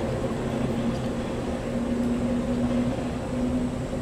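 Taiwan Railways EMU500-series electric multiple unit pulling out of the station, a steady low rumble with a hum that swells for about a second in the middle.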